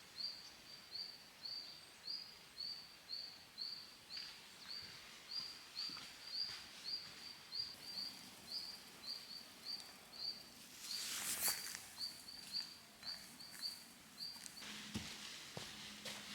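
A small bird calling a short high chirp over and over at a steady pitch, about two and a half times a second, stopping about a second before the end. A brief loud scuff or rustle comes about eleven seconds in.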